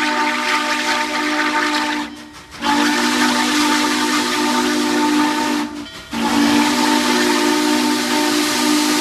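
Norfolk & Western 611's steam whistle blowing in long blasts with a hiss of steam, cut by two short breaks about two and six seconds in.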